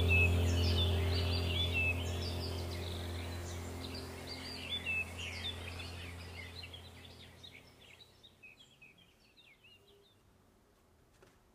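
Background soundtrack of a low steady drone with birds chirping over it, fading out to near silence about eight seconds in.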